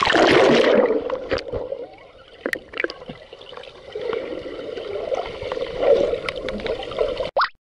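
Water splashing as the camera is pushed under the surface of a swimming pool, then the muffled underwater sound of the pool with scattered clicks and bubbling. It cuts off abruptly near the end.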